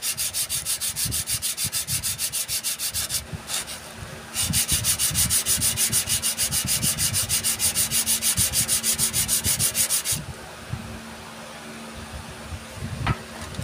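Carbon brush from a jacuzzi blower motor rubbed rapidly back and forth on a sheet of sandpaper, about five scraping strokes a second. The brush is being sanded down because it is too thick to fit its holder. The strokes pause briefly about three seconds in and stop about ten seconds in.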